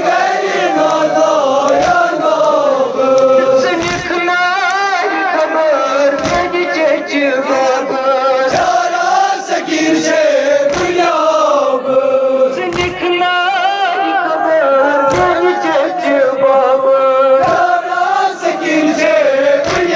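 Men chanting a Kashmiri noha, a Shia lament, as a continuous sung melody. A low thump lands about every two seconds.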